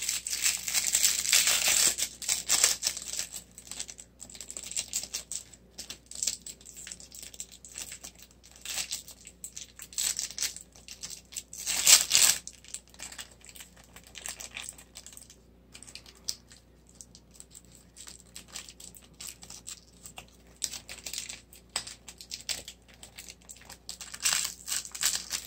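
Plastic packaging crinkling and rustling in the hands, with small clicks and taps of little plastic pieces, in irregular spells. The loudest rustling comes in the first two seconds, again about twelve seconds in, and near the end.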